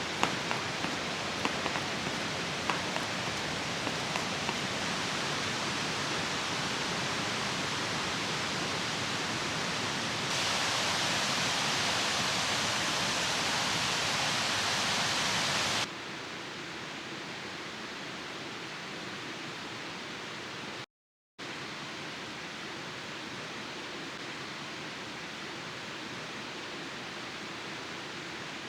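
Steady rushing of a mountain stream. It jumps louder for a few seconds in the middle, then settles softer, with a brief cut to silence about three quarters of the way through. A few faint ticks come in the first few seconds.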